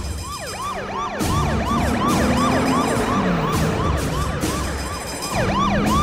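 Police car siren in yelp mode: quick rising-and-falling wails, about three a second.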